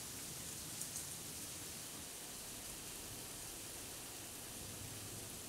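Thunderstorm downpour: steady rain hiss, with two short ticks about a second in.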